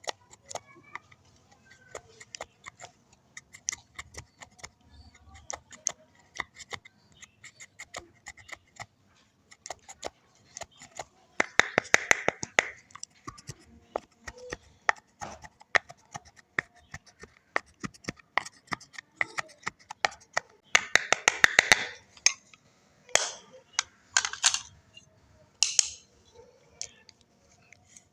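Slime being squeezed and mixed by hand, giving a stream of sharp, wet clicks and pops, with two denser spells of rapid crackling, one about a third of the way in and a longer one past two-thirds.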